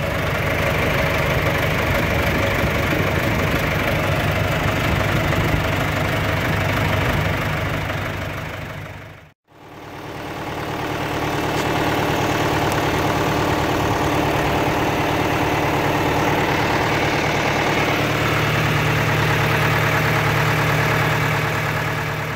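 A diesel engine idling steadily with a low, even hum. It fades out briefly about nine seconds in and fades back in.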